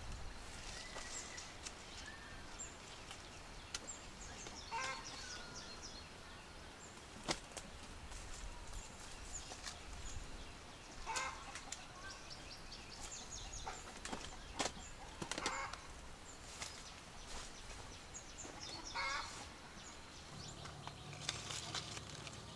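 Farm poultry calling in short bursts every few seconds, with a few sharp clicks or taps in between.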